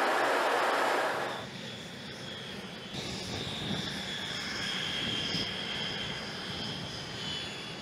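Jet aircraft on an aircraft carrier's flight deck: a loud rushing noise for about the first second and a half, then a quieter steady jet-engine whine with high tones coming in about three seconds in.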